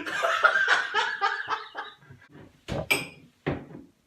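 High-pitched cackling laughter for about two seconds, then a few sharp knocks, one of them ringing briefly.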